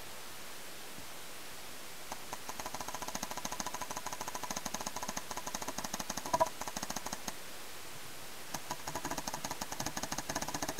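Paintball marker firing in rapid strings of shots: a long string from about two seconds in, a short pause, then another near the end, with one louder pop in the middle.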